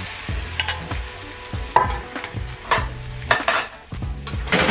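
Wooden chopsticks stirring beaten eggs in a hot oiled nonstick frying pan, knocking and scraping against the pan in a string of irregular clicks, over a faint sizzle of the eggs setting.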